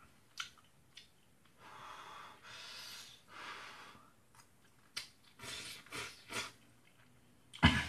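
Eating sounds: noodles being slurped and chewed, with several short breathy sucking sounds and a few small clicks, and a sudden louder knock near the end.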